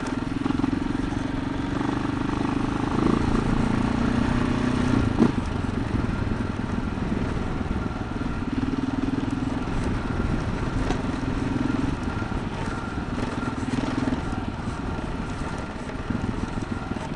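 Adventure motorcycle's engine running on a rough dirt track, its note swelling and easing with the throttle over a steady rush of wind and road noise. A single sharp knock comes about five seconds in.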